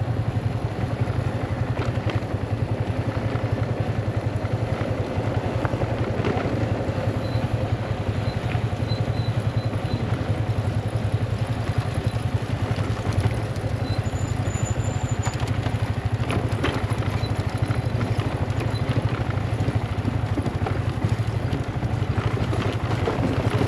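Motorcycle engine running steadily while the bike is ridden along, a low, rapidly pulsing drone.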